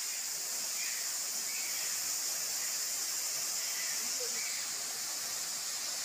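Waterfall water rushing down rock in a steady, even hiss, with a few faint high chirps over it.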